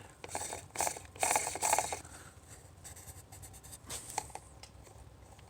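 Handling noises from the removed fuel filter and its cap: two short stretches of scraping and rustling in the first two seconds, then a few small clicks.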